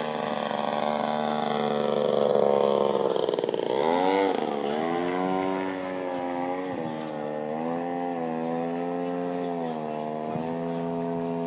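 Radio-controlled model airplane's engine droning as it flies overhead, its pitch rising and falling with throttle and passes. There is a sharp drop in pitch about four seconds in, which then climbs back.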